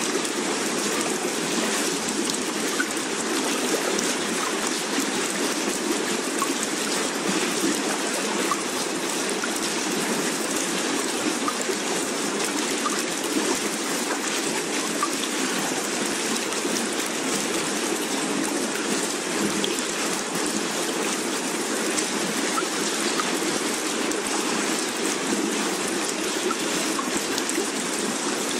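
Steady water ambience: an even rushing hiss with a faint patter of droplets, holding level with no rise and fall.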